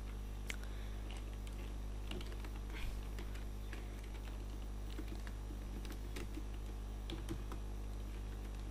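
Computer keyboard being typed on: scattered short key clicks in irregular runs, over a steady low hum.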